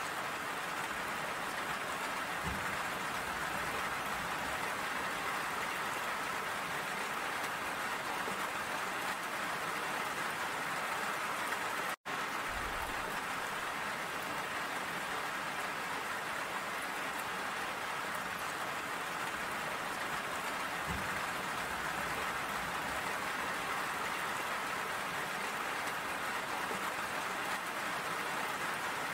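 Steady rain falling, drops spattering on wet hard surfaces as an even hiss. The sound cuts out for an instant about twelve seconds in.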